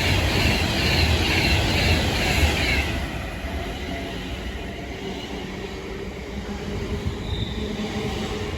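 Electric passenger train running past the platform, loud with rumble and rail hiss, then falling away about three seconds in to a quieter fading rumble.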